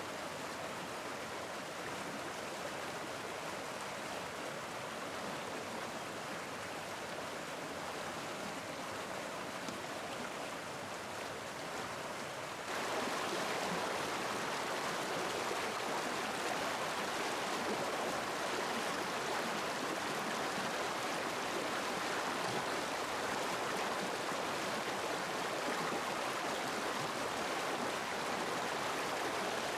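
Shallow mountain stream rushing over rocks, a steady wash of water that grows louder and brighter about halfway through.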